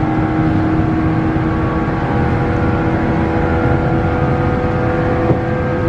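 JR 117 series electric train at speed, heard inside the car: the steady whine of its traction motors and gearing, holding one pitch, over the rumble of wheels on rail. A short click sounds about five seconds in.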